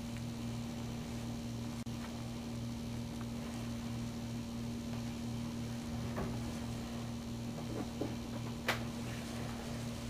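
Steady mechanical hum, such as a fan or other running appliance, with a lower throb pulsing about three times a second. A few faint ticks, then one sharp click near the end.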